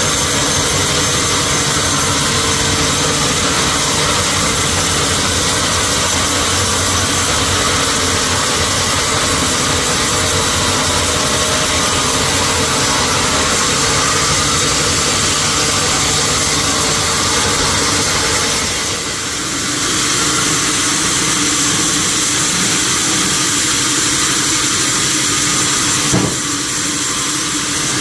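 Sawmill machinery running steadily with a constant hum, dipping briefly in loudness a little past two-thirds through, with a single sharp click shortly before the end.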